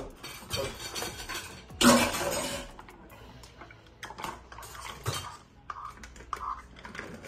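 A metal spoon scraping and clinking against a measuring cup as thick Greek yogurt is scooped out. Two loud scraping, rustling noises come in the first three seconds, followed by scattered light taps and clicks.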